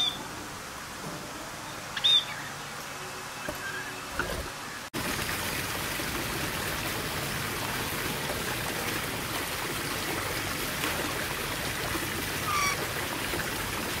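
A few short, high chirps from budgerigars, the loudest about two seconds in. About five seconds in the sound cuts to a steady hiss of water, with one short falling bird call near the end.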